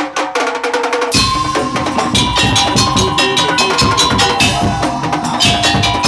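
Madurese musik daul (tong-tong) percussion ensemble playing. A few scattered hits open it, then about a second in fast, dense drumming and wooden knocking start, with steady held melody notes above.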